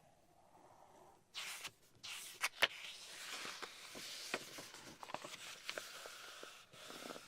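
Pen nib scratching on paper, with many small clicks and ticks. It starts with a short scrape, then runs on in a longer stretch of scratching.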